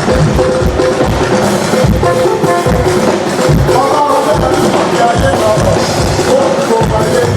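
Live church music: a steady drum beat with held instrumental tones and voices over it.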